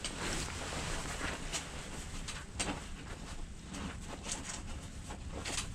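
Rustling and scattered light clicks from hands handling gear, over a steady low rumble.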